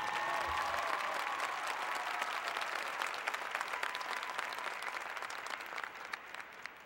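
Stadium crowd applauding and cheering, with a few shouts in the first second; the clapping thins and fades away toward the end.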